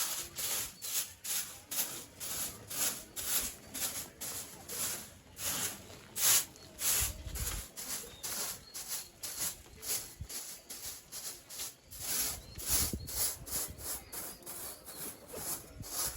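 Brisk scraping and brushing strokes, about two a second, as a chicken house floor is swept out.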